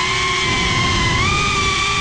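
FPV quadcopter's brushless motors and propellers whining up close, over a rough rushing noise. The pitch steps up slightly about a second in as the motors speed up.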